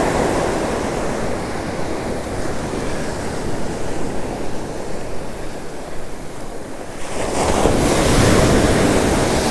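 Ocean surf breaking and washing up the sand, with wind rumbling on the microphone. About seven seconds in a wave breaks close by and the wash grows louder and hissier.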